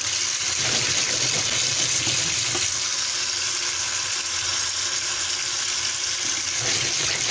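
Tap water running in a steady stream onto pieces of fish in a plastic colander in a stainless steel sink, as they are rinsed of their salt.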